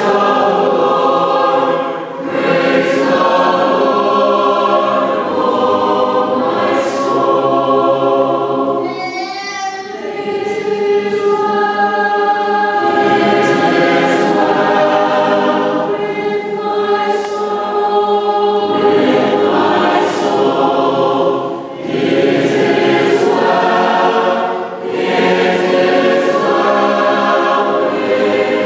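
A high school chamber choir singing a sacred song, full-voiced throughout, with brief breaths between phrases about 2 seconds in and twice near the end.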